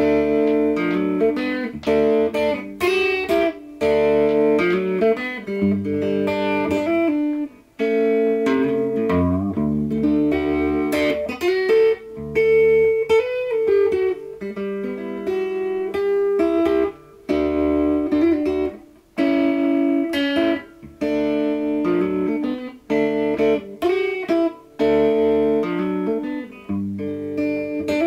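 Instrumental background music led by guitar, plucked notes played in phrases with a few short breaks.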